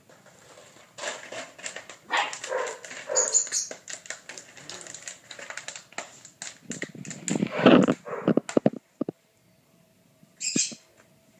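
Young puppies playing: yips and growls, with a louder stretch of growling and scuffling about two-thirds of the way through, and quick clicks of claws on a tile floor. A short high yip comes near the end.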